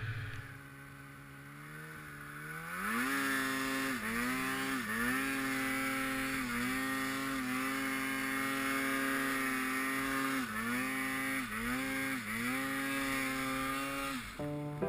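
Snowmobile's two-stroke engine revving up from low speed over the first few seconds, then held at high revs with several brief dips as the throttle is eased and opened again. It stops abruptly near the end.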